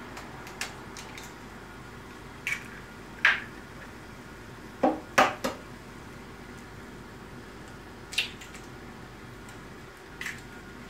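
Eggs being cracked into a frying pan: several sharp taps of eggshell as each egg is broken, spaced a second or more apart, with a quick cluster of three about five seconds in.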